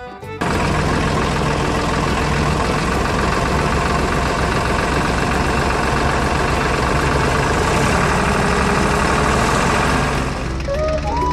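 Tractor engine running steadily with a fast, even chug. It starts suddenly about half a second in, and music comes in over it near the end.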